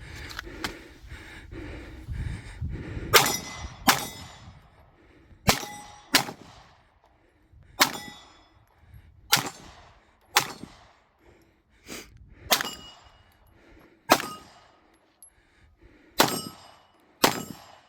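A shooter firing at steel targets during a timed stage: about a dozen sharp gunshots, roughly one every second or so, several followed by the brief ringing clang of a hit steel plate.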